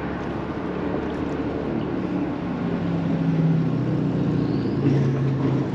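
A motorboat engine running as a steady hum that grows louder through the first half and eases slightly lower in pitch, over a steady wash of wind and water.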